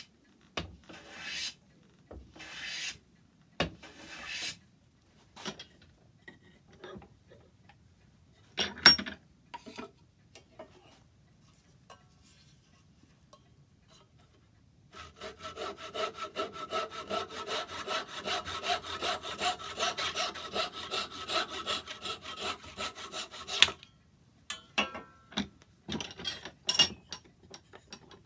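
Hand sawing in oak: a few slow strokes and a single sharp knock, then about eight seconds of fast, even back-and-forth saw strokes with a ringing tone, stopping abruptly, followed by a few light knocks.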